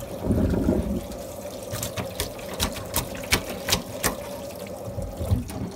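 Water running from a tap into a sink, with a series of sharp clicks and knocks.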